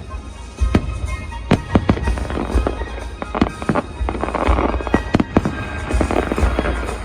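Aerial fireworks going off in quick succession: many sharp bangs, with several stretches of crackling from crackle shells, over a low rumble and show music.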